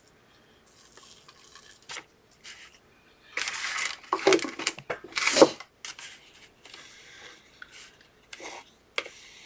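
Scraping and clinking of a utensil against a container while mixing paint into spackle, with a noisy scrape about three and a half seconds in and a sharp clack about five seconds in.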